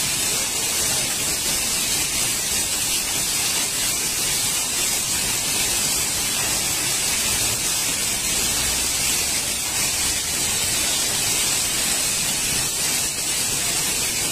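Torrential rain mixed with hail pouring down, a steady dense hiss with no let-up.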